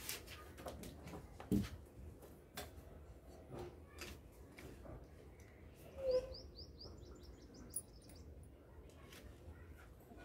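A bird chirps a quick run of about eight high, repeated notes some six seconds in, just after a short lower note. Faint scattered clicks and a knock about a second and a half in sit under it.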